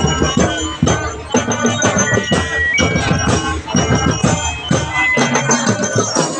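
Marching band playing: brass over a steady beat of drums and percussion.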